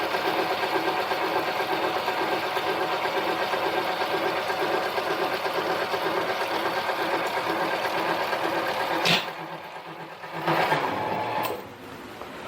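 Harbor Freight mini lathe running steadily with an even, fast pulsing hum while turning a metal part, then shutting off abruptly about nine seconds in. A brief burst of noise and some light clatter follow.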